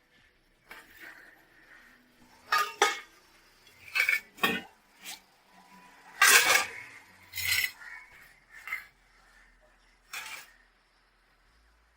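Kitchen pots, cups and spoons clinking and clattering while tea is prepared: a series of about nine separate knocks and clinks, the loudest about six seconds in.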